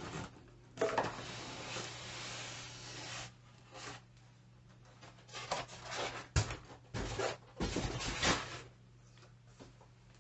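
Cardboard box and packing being handled: a long rustling slide for a couple of seconds, then a series of knocks, bumps and rustles.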